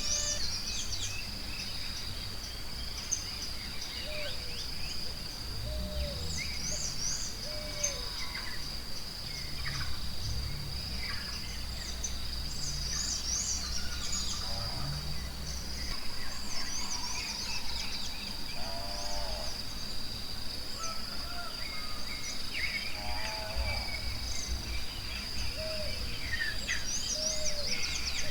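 Forest ambience: many birds chirping and trilling over a steady high insect buzz, with short repeated whistled notes lower down. From about five seconds in to about sixteen seconds in, a low drawn-out animal call sounds under the birds.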